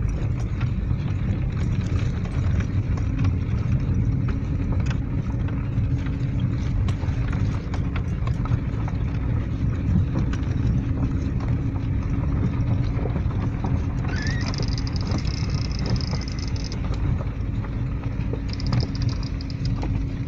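Car driving along a road, heard from inside: a steady low rumble with scattered knocks and clicks. A faint high whine comes in twice near the end.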